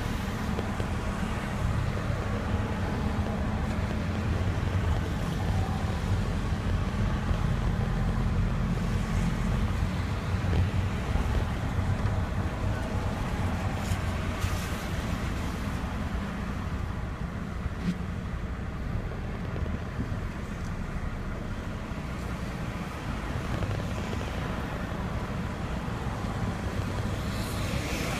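Car engine running with a steady wash of tyre and water noise from a wet road, heard from inside the cabin; the low engine sound is stronger in the first third.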